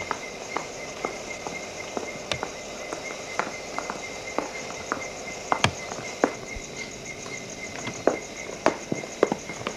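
Crickets chirping in a steady, fast-pulsing trill, with irregular sharp taps of footsteps over it. The loudest taps come about halfway through and near the end.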